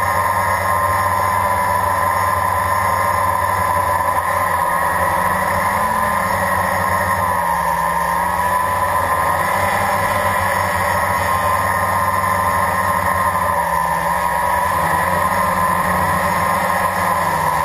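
Blade 350 quadcopter's electric motors and propellers whining steadily in flight, heard from the onboard camera, the pitch wavering slightly as the craft manoeuvres.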